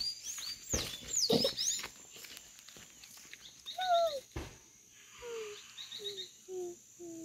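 Dog whining: one long falling whine about four seconds in, then a run of short whimpers about twice a second, with birds chirping around it. A few soft knocks come in the first two seconds.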